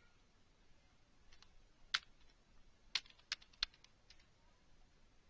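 Faint typing on a computer keyboard: a handful of separate keystrokes at an uneven pace, starting about a second in.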